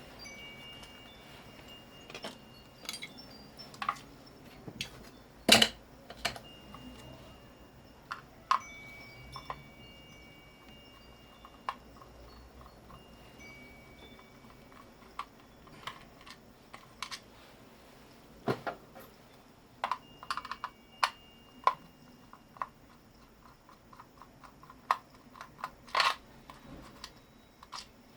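Small metal pieces being handled, clinking and knocking together at irregular intervals, a few of them ringing briefly with a high metallic tone.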